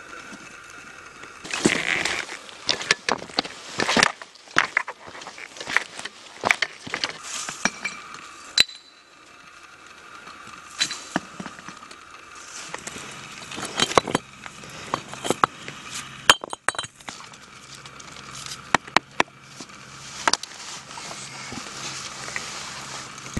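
Footsteps through brush and over loose rock, with irregular sharp clicks and knocks of stones and carried gear clinking.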